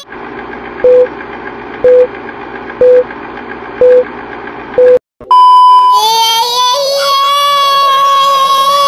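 Film-leader countdown sound effect: a steady whirring hum with five short, loud beeps one second apart, then a longer, higher beep. About five seconds in, a woman starts singing loudly with long held notes.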